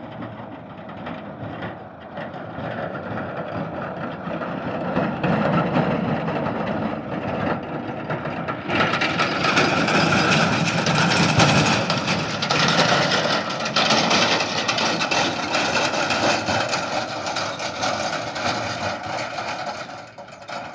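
Sonalika DI 750 diesel tractor engine running as the tractor pulls a trolley past. It grows louder as it approaches, is loudest about ten seconds in, then fades as it moves away.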